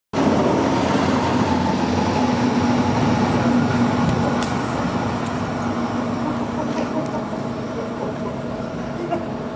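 Locomotive running on the track beside the platform: a loud, steady mechanical drone with a constant low hum, slowly getting quieter.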